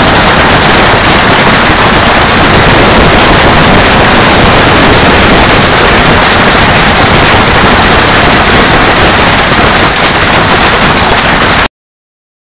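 Heavy hailstorm: a loud, steady, dense clatter of hailstones pelting the pool water and the paving, stopping abruptly near the end.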